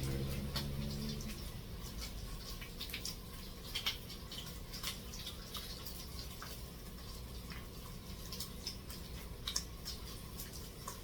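Bacon frying in sausage grease in a pan: irregular little crackles and pops of spattering fat.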